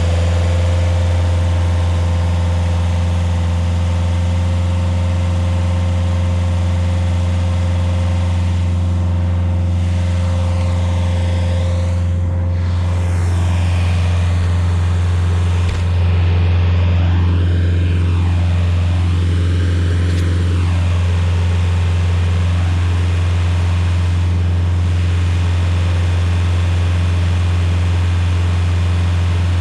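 Rayco RG50 stump grinder's engine running at a steady speed, a constant low hum that neither rises nor falls.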